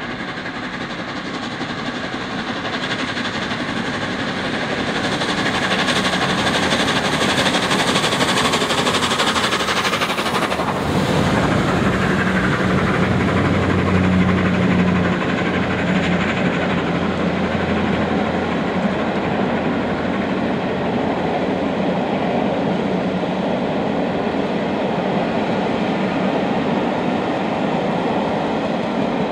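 Steam locomotive 60163 Tornado, a Peppercorn A1 Pacific, approaching and passing at the head of a passenger train, followed by its coaches rolling by. The sound builds over the first several seconds; about ten seconds in, a steady low hum sets in for several seconds beneath the passing train.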